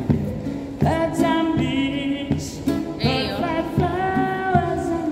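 A man singing held notes to his own strummed chords on a classical guitar.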